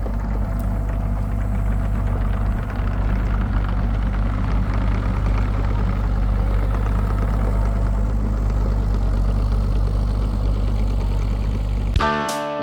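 An engine running steadily at idle, a low even hum. Guitar music starts suddenly near the end.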